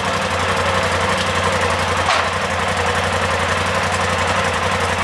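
Polaris RZR Turbo S side-by-side's turbocharged twin-cylinder engine idling steadily.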